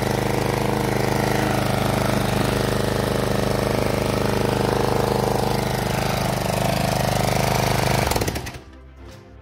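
John Deere JS63C walk-behind mower's petrol engine running steadily on its first start after a full rebuild with new piston rings and a honed bore. The sound cuts off about eight seconds in.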